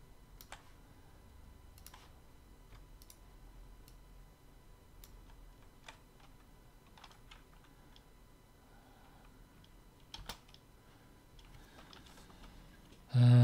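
Faint, scattered clicks of a computer keyboard and mouse at irregular intervals, with a short loud voice sound just before the end.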